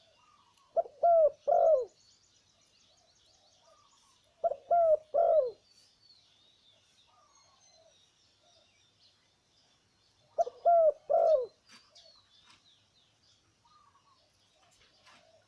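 Male zebra dove cooing in three phrases of about three short, falling, throaty notes each, with a few seconds of pause between phrases. Other small birds chirp faintly in the background.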